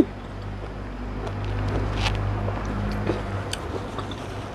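Quiet chewing and small mouth clicks while eating, over a steady low hum.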